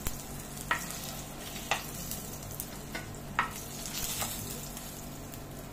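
Fish frying in mustard oil in a frying pan: a steady sizzle, broken by about half a dozen sharp clicks of a utensil against the pan as the fried rohu pieces are lifted out.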